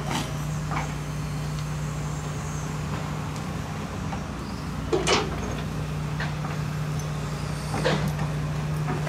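Excavator's diesel engine running steadily with a constant low hum, and a few short sharp noises about one, five and eight seconds in.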